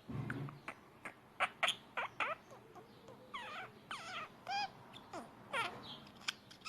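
A small pet animal making a series of short, high squeaky chirps mixed with sharp clicks.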